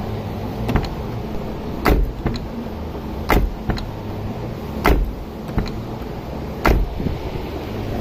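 Minivan exterior door handle and door latch being worked repeatedly: sharp latch clicks and clacks, the loudest about every second and a half, with lighter ticks between, over a steady background hum. This is the replacement handle being tested after it was pinned so its lever can no longer pop out.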